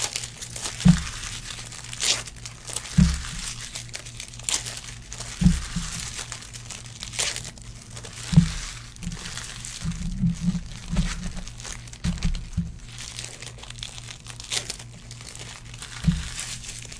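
Foil trading-card pack wrappers crinkling and tearing open, with cards flicked and shuffled in the hands. Dull thumps come every two or three seconds, with a quick cluster of them partway through.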